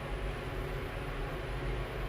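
A moving vehicle's steady rumble and hiss, with a faint high whine held throughout.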